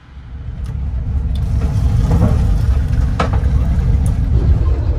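Passenger train running: a loud, low rumble that swells up over about the first second and then holds steady, with a few sharp clicks through it.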